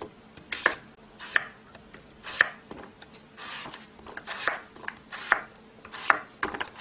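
Kitchen knife chopping Korean radish (mu) into pieces on a cutting board, one sharp chop roughly every second.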